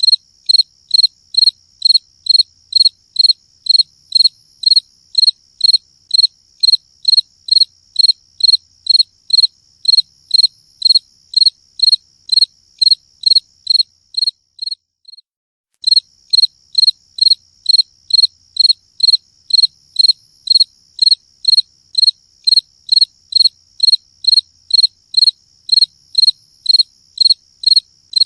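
Cricket chirping steadily, about two high-pitched chirps a second. The chirping stops for about a second and a half midway, then resumes at the same rate.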